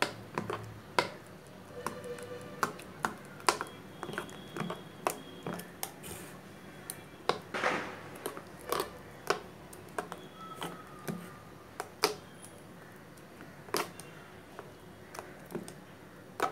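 A metal spoon stirring thick ground urad dal batter in a stainless-steel mixer jar, clinking against the jar's sides in irregular sharp taps, about one or two a second, with one longer scrape about halfway through.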